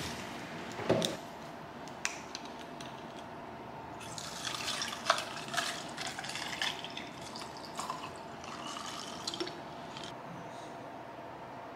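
A peach drink being poured from a plastic bottle into a glass jar over ice: a splashing, trickling fill that lasts a few seconds in the middle. Light clinks and knocks come before and during the pour.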